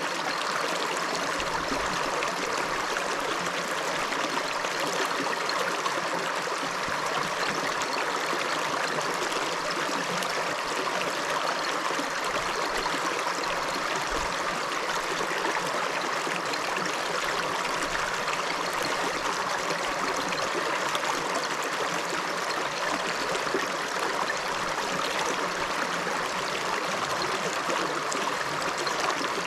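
Small river flowing steadily over rocks, a continuous rushing and trickling of water.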